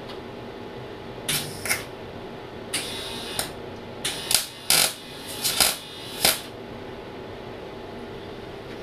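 Welder striking short arcs to tack a new bolt onto a sheared bolt stump: several brief bursts of crackle, the longest just under a second, over a steady hum.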